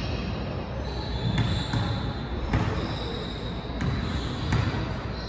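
A basketball bouncing about five times on a hardwood gym floor: a player's dribbles at the free-throw line before the shot.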